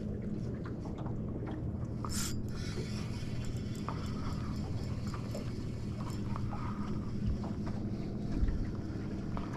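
Water lapping against a small boat's hull over a steady low hum, with wind on the microphone; a short hissing splash about two seconds in.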